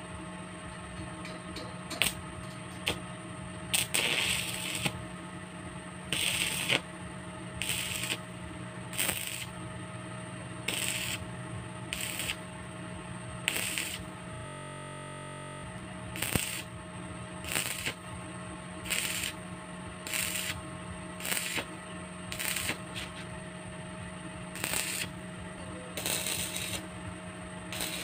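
Stick (arc) welding on steel tube railings: the arc crackles and sizzles in short bursts, each under a second, coming roughly once a second over a steady hum, with a brief pause about halfway.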